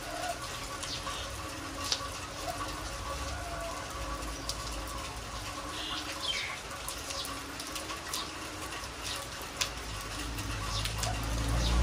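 Heavy rain falling on a concrete yard, a steady hiss of rain with many scattered drips and splashes. A low rumble grows near the end as a vehicle approaches on the road.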